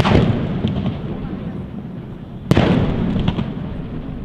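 Aerial firework shells bursting: two loud bangs about two and a half seconds apart, each followed by a long rolling echo, with a few fainter cracks after the second.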